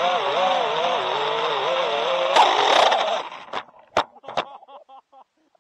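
5-inch FPV quadcopter's brushless motors and props whining, the pitch wavering up and down with throttle. About two and a half seconds in there is a loud hit, the motors cut out abruptly just after, and a few sharp knocks follow as the drone tumbles onto the ground.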